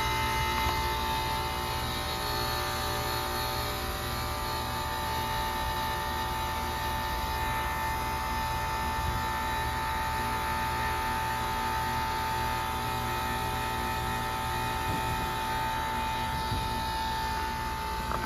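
Carrier WeatherMate 38YCC heat pump outdoor unit running through a defrost cycle, giving a steady low hum with a steady high whine over it.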